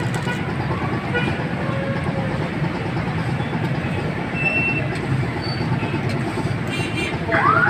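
Steady rumble of street traffic and idling engines. Near the end an electronic vehicle siren starts up with quick repeated rising whoops, about three a second, louder than the traffic.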